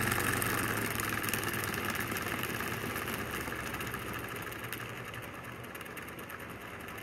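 Homemade transistor-switched brushless Newman motor, its rotor spinning between two copper coils, running with a rapid pulsing buzz that fades steadily as its speed is turned down.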